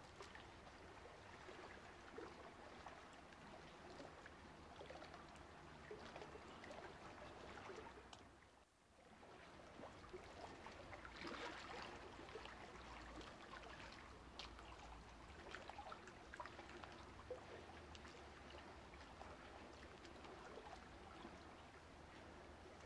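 Faint watery rushing over a steady low hum, dipping out briefly about nine seconds in.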